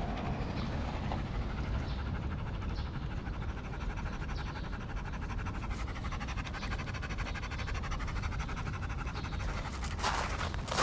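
Dog panting rapidly to cool down in the heat during a rest, over a steady low background rumble.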